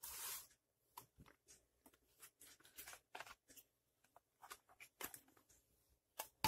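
Faint handling sounds of a plastic blood pressure monitor: a short rustle at the start, then scattered soft clicks and taps as the unit is picked up and turned over.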